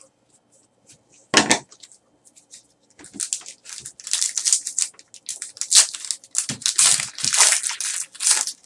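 A single sharp knock about a second and a half in, then from about three seconds on the crackling and crinkling of a shiny trading-card pack wrapper from a 2013 Panini Certified Football box being torn open, with the cards pulled out of it.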